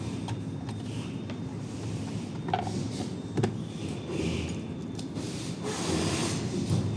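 Rubbing and scraping with a few sharp clicks, typical of hands working on the coffee grinder's parts during the repair.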